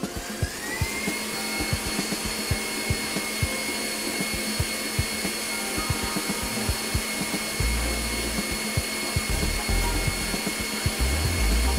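KitchenAid Professional 550 HD stand mixer starting up with a rising whine about half a second in, then running at a steady high pitch as its wire whisk whips egg whites. A low rumble comes and goes in the second half.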